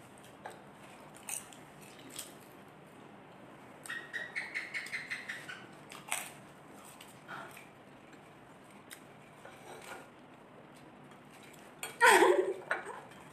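Potato chips being bitten and crunched straight off plates without hands, heard as scattered sharp clicks and crackles. A short muffled voice comes about four seconds in, and a loud burst of voice near the end.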